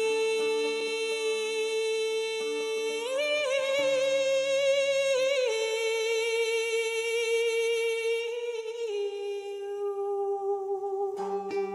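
Background music: a voice hums long held notes. About three seconds in the pitch rises and wavers, drops back about two seconds later, and steps lower near nine seconds. A few plucked string notes come in near the end.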